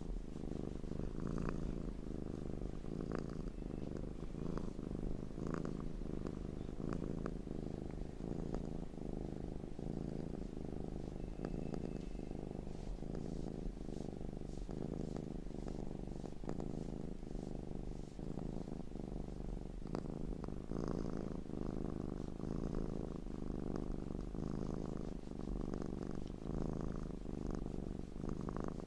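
Domestic cat purring steadily, a low rumble pulsing in an even rhythm.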